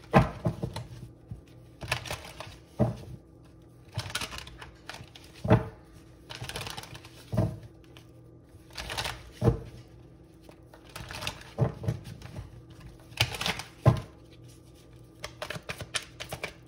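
A stiff, new-feeling tarot deck being shuffled by hand: irregular sharp card slaps and knocks every second or two, with softer rustling shuffles between.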